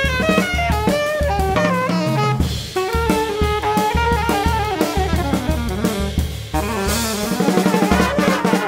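Jazz big band playing: drum kit and double bass driving under saxophone section lines, with a brighter cymbal wash from about seven seconds in.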